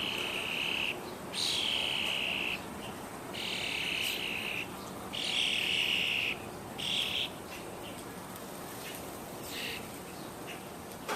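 A fledgling bird's harsh, buzzy begging calls, about five of them, each lasting about a second, then a few fainter ones: a young bird still hungry and begging from the older bird that has been feeding it.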